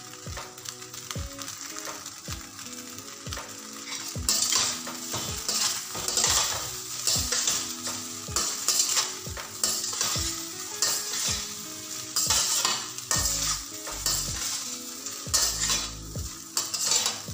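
Steel spatula stirring and tossing pieces of suji dhokla in a stainless-steel kadai over a gas flame, with a steady sizzle from the hot tempering oil. The spatula's scrapes against the metal pan come in repeated strokes, growing louder and more frequent about four seconds in.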